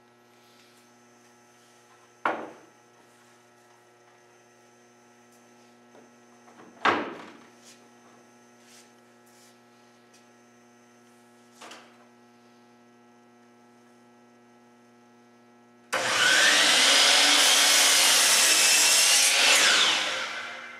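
Miter saw started and brought down through a wooden board: its motor and blade run loud for about four seconds near the end, then die away. Earlier there are two sharp knocks and a quieter one, over a steady electrical hum.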